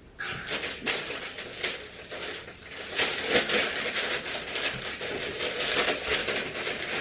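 Packaging crinkling and rustling as an item is unwrapped by hand, with many small crisp crackles.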